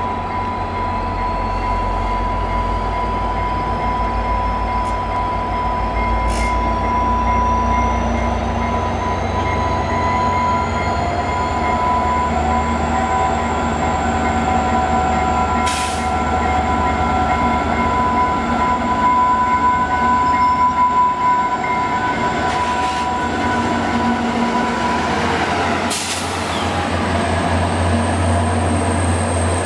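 EMD F40PH-2 diesel-electric locomotive, its turbocharged 16-cylinder EMD 645 engine working as it pulls a six-car passenger train away from the station and passes close by. A steady low rumble runs under a steady high whine, with a second whine rising in pitch over the first dozen seconds and a few sharp clanks along the way.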